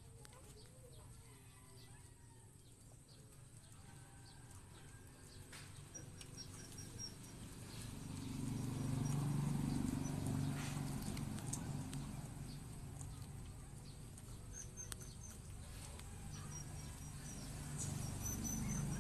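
Small birds chirping in short, high runs of notes, over a low rumble that swells about halfway through and again near the end.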